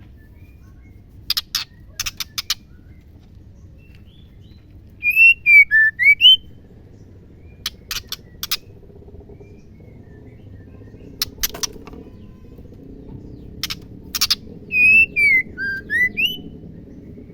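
Female white-rumped shama calling: short dry clicking rattles, repeated several times, alternate with two short whistled phrases that slide down and then back up.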